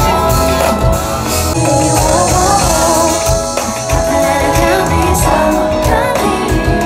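Live pop band (electric guitar, keyboards, drums) playing on a festival stage through the PA, heard from within the crowd. A woman's voice comes in about a second and a half in, singing a winding melodic line over the band.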